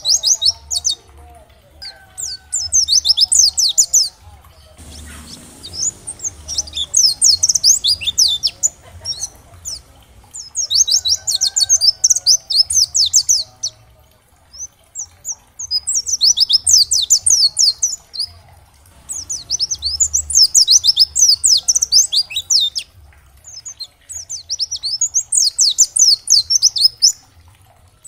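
White-eye (pleci) singing: rapid, high twittering phrases a few seconds long, repeated about six times with short pauses between. A low hum runs underneath, and a brief rushing noise comes about five seconds in.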